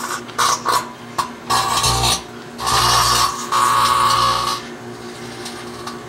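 Microwave oven running with a dead EL34 vacuum tube inside arcing: irregular loud buzzing bursts, from brief crackles to about a second long, over the oven's steady low hum.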